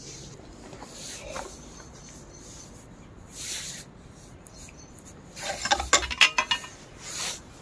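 Bench vise's steel sliding handle bar clanking in its bore as the vise is worked: a quick cluster of sharp metallic clicks and knocks in the second half, after a few soft rustles.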